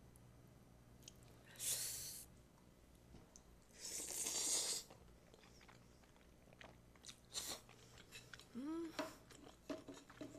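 A person slurping up noodles, two long slurps in the first half, then chewing with small wet mouth clicks and a brief hum near the end.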